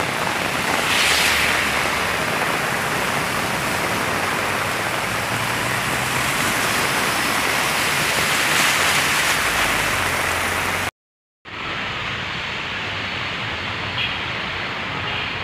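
Heavy rain with car tyres splashing through water on a flooded road: a steady loud hiss that swells as a vehicle ploughs past. It drops out for a moment about eleven seconds in and comes back duller.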